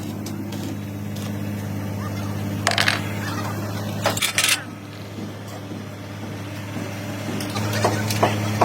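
An engine idling with a steady low hum, getting louder near the end, with a few sharp metal knocks from tools on the truck about three and four seconds in.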